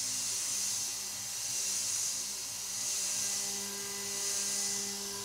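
CNC router spindle at 12,000 RPM running a 4 mm end mill down a 3-degree helical spiral into cast aluminium plate, with the mist coolant's air blast hissing over it. A steady hum and hiss, the cutting noise swelling and easing slowly as the tool circles the hole.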